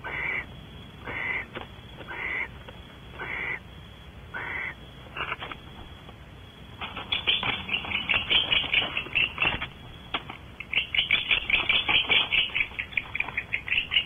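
Barn owl in its nest cavity giving rasping, hissing snore calls about once a second, the food-soliciting call typical of a female waiting for prey from the male. About seven seconds in, this gives way to a fast, excited run of short chittering twitters, which break off briefly and then resume.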